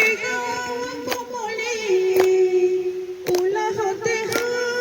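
A song with a high, likely female singing voice holding and bending notes, including one long held note in the middle, over a sharp beat about once a second.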